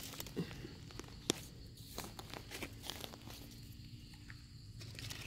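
Faint rustling and crackling of dry leaf litter on a forest floor, with scattered light snaps and one sharper click about a second in.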